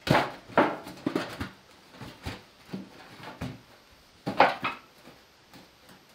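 Thin sheet-metal ring clanking and flexing as it is pushed and shifted around a pit in the ground: a string of uneven knocks that ring briefly, the loudest about four and a half seconds in.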